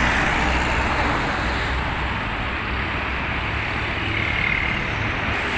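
Sinar Jaya intercity coach passing close by, its engine and tyres loudest in the first second or so, then settling into steady road traffic noise.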